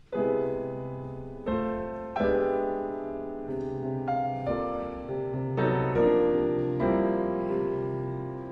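Background piano music: gentle notes and chords struck about once a second, each fading away before the next.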